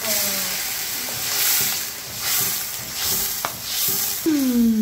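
Tomato paste and onions sizzling in a stainless steel pot as a metal ladle stirs them, the hiss swelling with each stroke. There is one sharp click about three and a half seconds in, and a long falling tone near the end.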